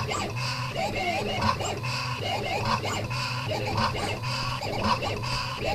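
Stepper motors of a home-built CNC machine whining through short, quick moves as it draws lettering and clip-art, the pitch gliding up and down with each move, about one move a second.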